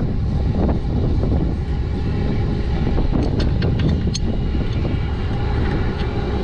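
An engine running steadily with a dense low rumble, a few short clicks about three to four seconds in, and a faint steady whine joining near the end.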